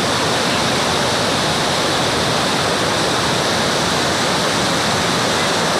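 A hill stream in flash flood after heavy rain, its muddy torrent rushing loudly and steadily.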